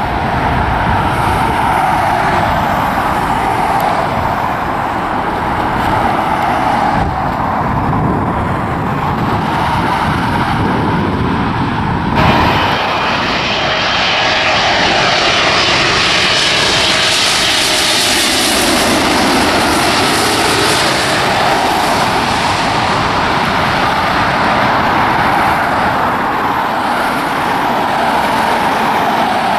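Jet airliner engine noise, steady at first; after a cut about twelve seconds in, a British Airways Boeing 777 on final approach passes close overhead, its jet noise and rushing air swelling to a peak and then easing off.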